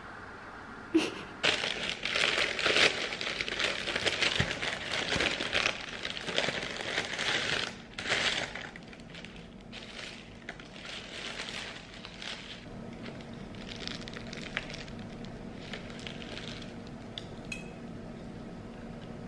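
Paper bakery bag and thin paper pastry wrapper crinkling and rustling as a pastry is unwrapped and handled. The crinkling is dense and loudest from just after the start to about eight seconds in, then turns into lighter, scattered rustles.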